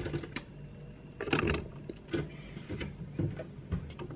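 Handling noise close to the microphone: a string of irregular knocks and rubs as the camera is handled, the loudest about a second and a half in.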